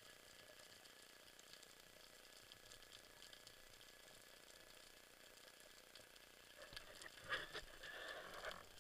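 Faint underwater ambience heard through a diving camera's housing: a steady, crackly hiss. About seven seconds in, louder scratchy rustling and knocking noises start.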